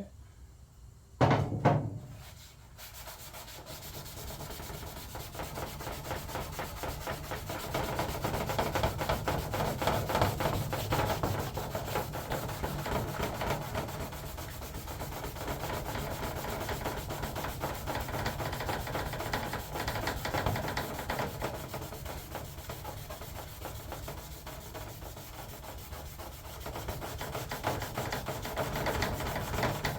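Hand scrubbing on an aluminum race-car body panel, steady rapid back-and-forth rubbing strokes to work solvent-softened tire burn marks off the decals. A couple of sharp knocks come about a second in, before the scrubbing starts.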